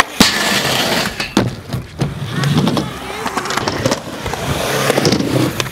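Skateboard landing with one sharp clack just after the start, then urethane wheels rolling on concrete, with a few more board clacks along the way.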